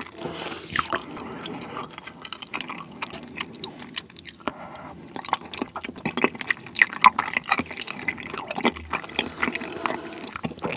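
Close-miked wet chewing and lip smacking of noodles in a creamy spicy sauce, with the sticky squish of chopsticks lifting noodles out of the sauce. Many small, irregular, wet clicks.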